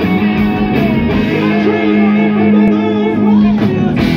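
Live rock band playing loudly, an electric guitar to the fore with long held notes, some of them bent and wavering in pitch, over a steady low chord.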